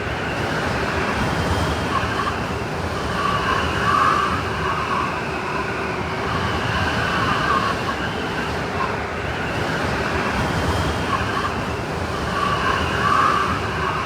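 Blizzard wind sound effect: steady blowing wind with whistling gusts that swell about four seconds in and again near the end.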